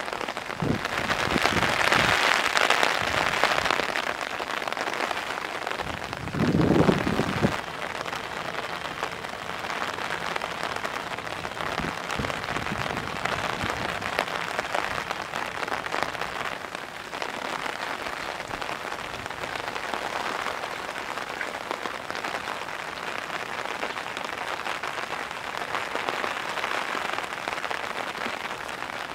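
Heavy rain falling steadily, loudest in the first few seconds, with a brief louder low rush about seven seconds in.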